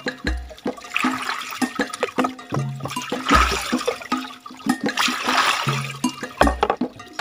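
Water poured from a plastic bowl over a freshly dug taro tuber and splashing onto a bamboo platform, in three pours as the tuber is washed, over looping background music with a deep beat about every three seconds.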